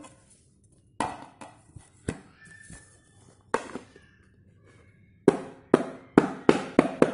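Hexagonal aluminium cake tin turned upside down onto a plate and knocked to loosen the cake out of it: a few scattered knocks and clatters, then a quick run of about six sharp knocks on the tin near the end.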